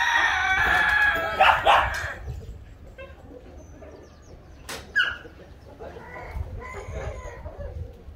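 A rooster crowing: one long held call for the first two seconds or so, then a few short, quieter clucks from the hens, with a sharp one about five seconds in.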